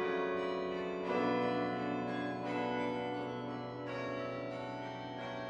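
Organ playing slow, sustained chords that change every second or so and begin to fade near the end.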